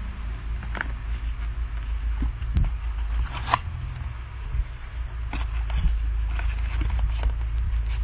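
Cardboard box being handled and its top flap opened: scattered scrapes and clicks, the sharpest about three and a half seconds in, over a steady low rumble.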